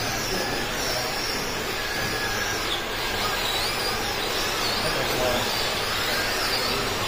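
Several Tamiya radio-controlled Euro truck models racing, their electric motors whining and rising and falling in pitch as they are throttled on and off, over a steady background hiss.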